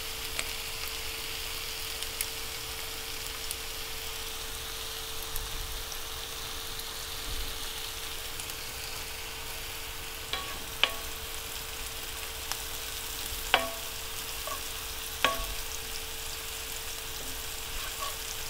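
Shallots and curry leaves sizzling steadily in hot oil in a large pan as they sauté toward caramelizing. A handful of sharp clinks of a cooking utensil against the pan come a little past halfway.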